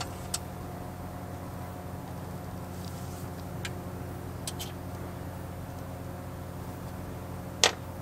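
A vehicle engine idling with a steady hum, while parts under the hood are handled: a few light clicks and one sharp, louder snap near the end.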